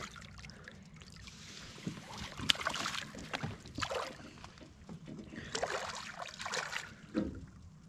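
Small blue catfish splashing and thrashing at the water's surface beside the boat as it is landed by hand, in two spells of splashing, about two seconds in and again about five and a half seconds in, with a sharp click in the first.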